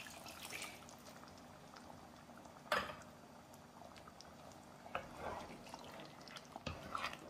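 Thick coconut milk poured from a cup into a pan of duck curry, then a wooden spatula stirring it through the thick sauce, all faint. A sharp knock about three seconds in.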